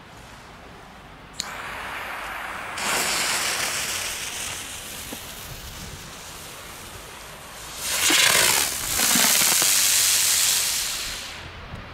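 A small firework hissing as it burns and throws sparks. A sharp crack comes about a second and a half in, then the hiss swells in two surges, the second one the loudest and wavering, before it dies away near the end.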